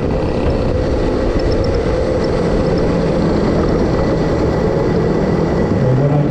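A racing kart on the move, heard as a loud, steady rumble of wind and engine noise, with the deep, dense low end of buffeting on an onboard microphone.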